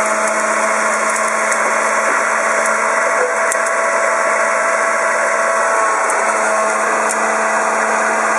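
Bosch 450 W electric hand blender running steadily, its blade churning food in a tall beaker covered with a tea towel.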